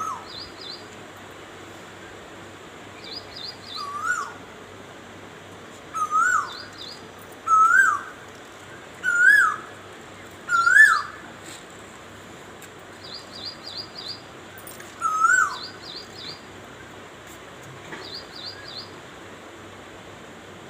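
Asian koel calling: a loud rising call repeated about every one and a half seconds, each louder than the last through five calls, then once more a few seconds later. Another small bird chirps in quick runs of three or four high notes in between.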